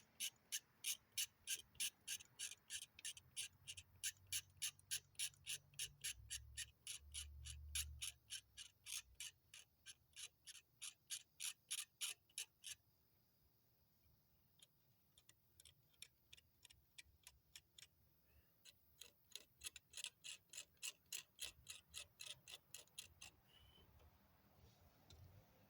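A hobby knife scraping a model car part in quick, even back-and-forth strokes, about three a second, roughing the surface so the glue will bond. The scraping is steady at first, turns sparse for several seconds about halfway through, then picks up again before stopping near the end.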